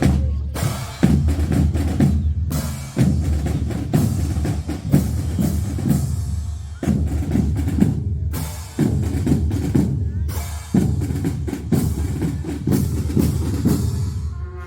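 Percussion section of a marching fanfare band playing a drum cadence: deep bass-drum beats under rapid snare rolls, the pattern restarting with a strong accent about every two seconds.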